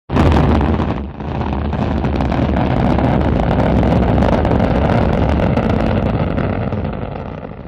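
Space shuttle launch rumble: a loud, deep, ragged noise from the rocket engines that cuts in suddenly, dips briefly about a second in, holds steady, then starts to fade near the end.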